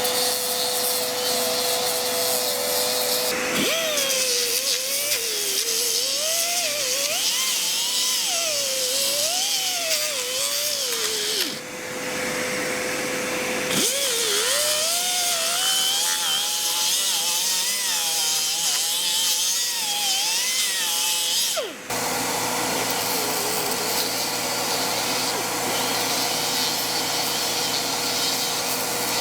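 Electric power sander running on cured fairing compound. Its whine rises and falls in pitch as it is pressed into and eased off the surface. The sound changes abruptly a few times, as if cut between separate stretches of sanding.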